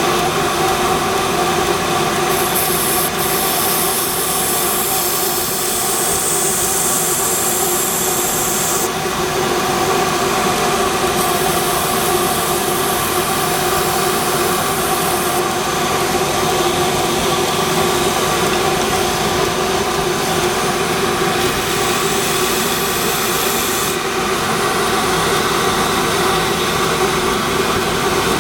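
Belt grinder running steadily while a steel slipjoint knife part is ground on it. Over the machine's steady hum there is a high grinding hiss that comes and goes several times.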